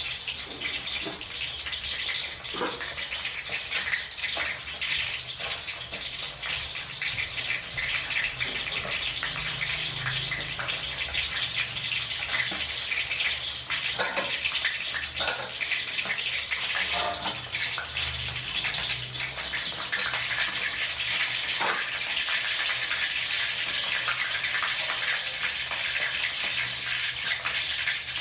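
Hot oil sizzling steadily around a whole fish and garlic cloves frying in a wok, with frequent small crackles and pops.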